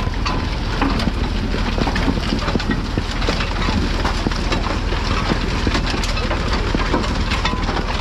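Massey Ferguson 711 potato harvester digging: a steady, dense clattering and rattling of its chain elevator, soil and stones, over the low running of the tractor's engine.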